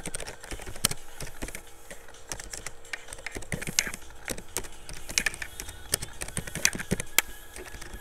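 Typing on a computer keyboard: irregular key clicks in quick runs with short pauses, a few strokes louder than the rest.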